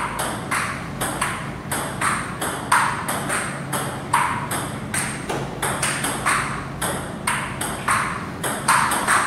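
Table tennis rally: the celluloid ball clicks off the paddles and bounces on the table in a steady back-and-forth, about three sharp clicks a second, over a steady low hum.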